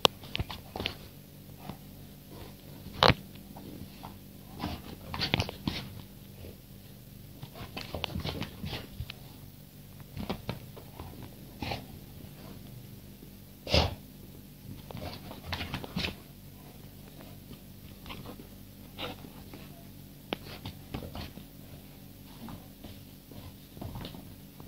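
A dog at play with a toy, making short snorts and sniffs mixed with irregular bumps and knocks; two sharper knocks stand out, about three seconds in and again just past the middle. A steady low hum runs underneath.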